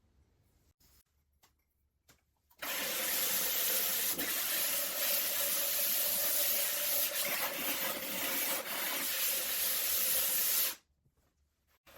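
The foot of a glaze-fired ceramic pot being ground on a wet diamond disc, a steady gritty scraping that starts about two and a half seconds in, runs for about eight seconds and stops abruptly. The grinding evens out a rough or rocking bottom so the piece sits flat.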